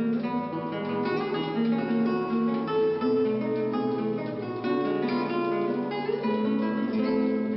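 Solo nylon-string classical guitar, fingerpicked: a melody of plucked notes over ringing chords.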